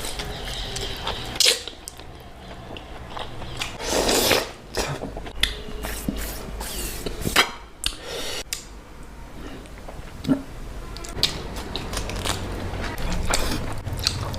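Mutton curry with marrow bones being eaten close to the microphone: irregular wet chewing, smacking and slurping noises with a few sharp clicks, some louder bursts scattered throughout.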